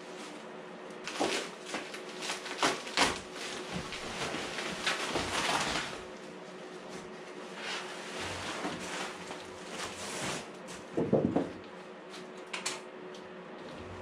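Plastic sheeting and bubble wrap rustling and crinkling as they are pulled off a new car fender, with knocks from the fender and cardboard box being handled and a louder dull bump about eleven seconds in.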